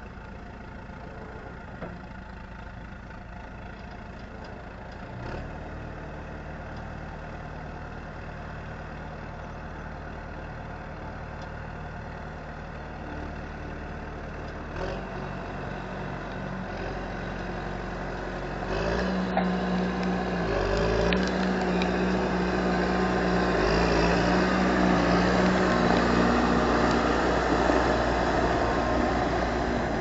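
John Deere 610C Turbo backhoe's turbocharged diesel engine running, idling steadily at first, then brought up to higher revs and getting louder from a little past halfway as the machine drives off.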